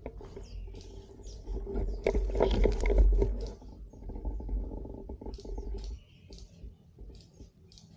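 Outdoor ambience: a low rumble of wind on the microphone, with rustling and clicks loudest about two to three and a half seconds in, and short high chirps repeating in the background.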